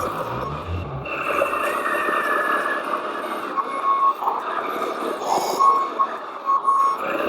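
Reversing beeper of a radio-controlled model construction machine or truck, sounding in several short beeps of one steady tone, over the running noise of the models' small motors and gears.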